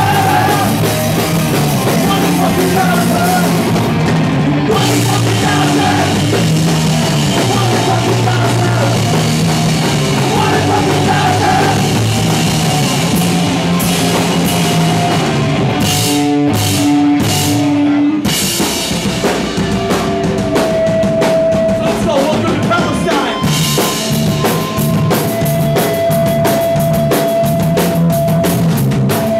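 Live punk rock band playing loud, with electric guitars and a drum kit. About sixteen seconds in, the band breaks into a few stop-start hits, then comes back in full.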